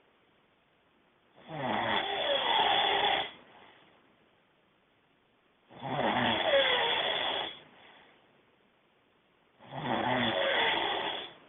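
A man snoring loudly through his nose: three long snores, one about every four seconds, each lasting about two seconds, with quiet breathing gaps between them.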